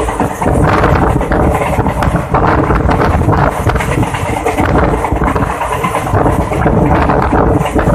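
Passenger train coach running at speed: steady wheel and track noise with constant rattling, and wind buffeting the microphone.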